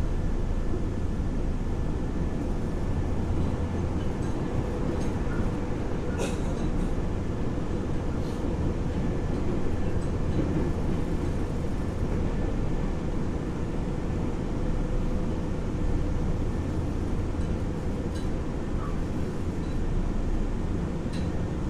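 Inside a Nagoya Municipal Subway 3050-series car on the move: the steady low rumble of the running train with the even hum of the car's ceiling ventilation fans. Two sharp clicks, one about six seconds in and one near the end.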